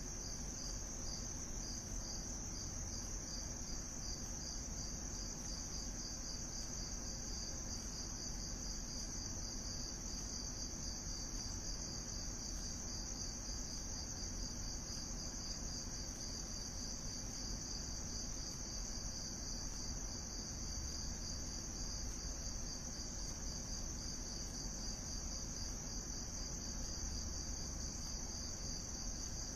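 Crickets chirping steadily: a continuous high trill with a rapidly pulsing note just beneath it.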